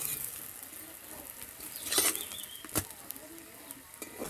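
Metal spatula scraping and knocking against a steel kadai as a pancake is turned in hot oil over a wood fire, with a light sizzle underneath. The loudest scrape comes about two seconds in, followed shortly by a sharp click.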